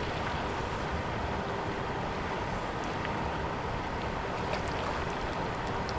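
Mountain creek water rushing steadily over rocks, an even wash of noise. A few faint ticks sound about four and a half seconds in.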